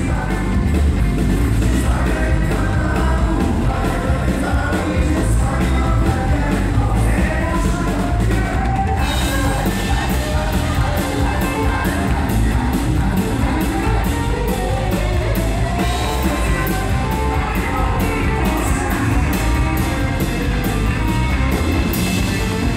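Live band playing rock-tinged country music on electric guitar, acoustic guitar, fiddle and drum kit, with a voice singing. Cymbals tick steadily from about nine seconds in.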